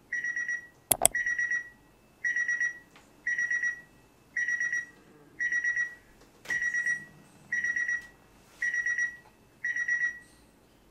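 Electronic alarm beeping: a quick group of high beeps repeats about once a second, ten times. A sharp click sounds about a second in.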